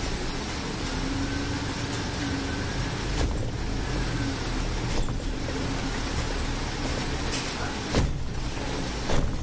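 Scania Citywide city bus driving, heard from the driver's seat: steady engine and road noise. A few sharp knocks come through, the loudest two near the end.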